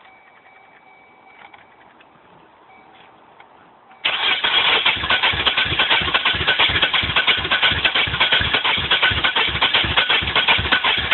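Chevrolet Cavalier's 2.4-litre four-cylinder engine being cranked over by the starter, a quick, even pulsing that begins suddenly about four seconds in and keeps on without the engine catching: a no-start.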